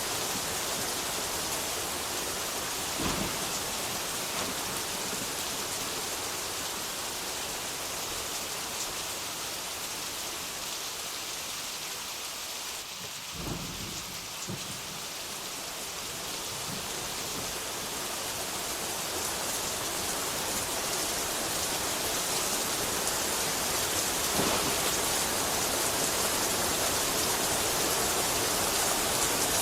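Steady rain falling, a dense even hiss, with a few brief low rumbles of thunder: about three seconds in, twice around the middle, and once more after about twenty-four seconds.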